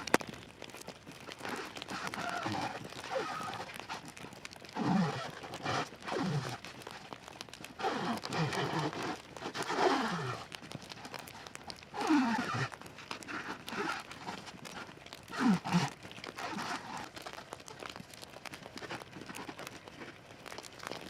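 Plastic wrap being handled and stretched around sticks: crinkling, with a series of short squeaks that drop in pitch, about seven in all.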